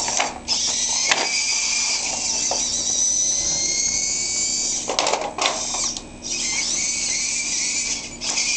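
High-pitched whine of a small robot's electric gear motors and hobby servos as it drives and works its arm. The whine cuts out and starts again a few times, with a few sharp clicks.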